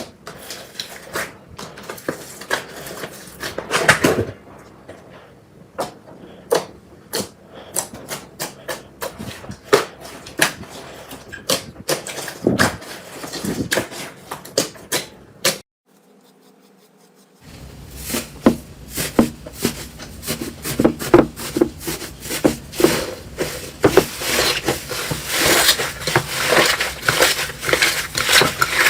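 Slime being pressed, stretched and poked by hand, making sticky clicks and pops. About halfway through there is a brief near-silent break, after which the clicking and crackling come denser and faster.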